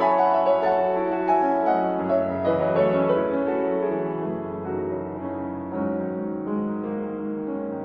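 Background piano music: a soft, slow melody over sustained chords.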